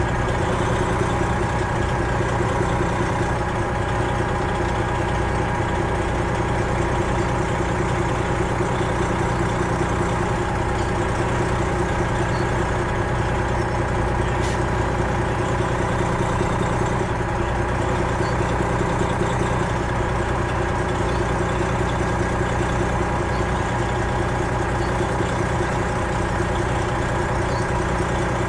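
Detroit Diesel 12.7-litre engine of a Freightliner Classic XL semi truck idling steadily, with one faint click about halfway through.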